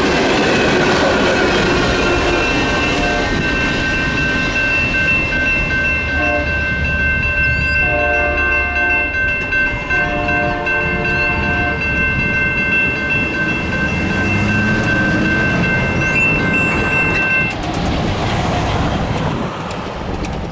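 The last freight cars roll past with wheel-on-rail clatter. The grade crossing's NEG electronic bell then keeps ringing while the gates go up, and it cuts off a few seconds before the end. A distant locomotive horn blows several blasts midway through.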